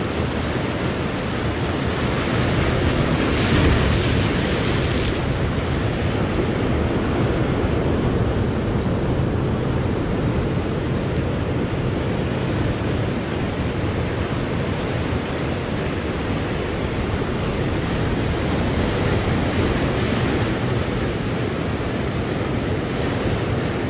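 Ocean surf breaking and washing over rocks, a steady rushing with wind on the microphone; a louder wave comes through about three to five seconds in, and another swell near the end.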